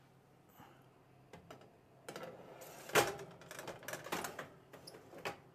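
Metal baking tray clattering and scraping as it is slid onto an oven's wire rack: a run of rattling clicks and knocks, loudest about three seconds in.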